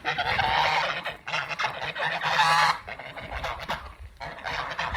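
A flock of domestic geese honking loudly, many harsh overlapping calls, with the loudest stretch about halfway through before it eases off.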